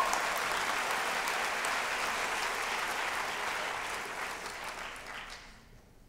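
Audience applauding, fading out about five and a half seconds in.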